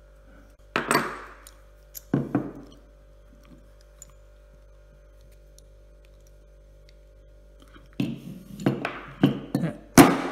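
Sharp metal knocks on a shotgun action: two single knocks in the first couple of seconds, then from about eight seconds in a run of hammer taps on a punch, about two a second and loudest near the end, driving a displaced part back into its hole.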